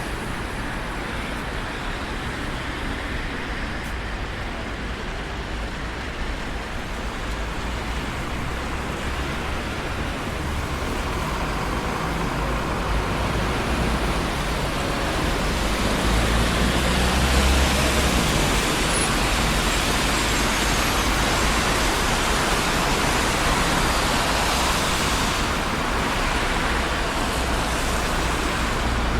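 Traffic on a busy city street: a steady wash of passing cars and tyre noise, building to a louder pass with a low engine rumble about halfway through.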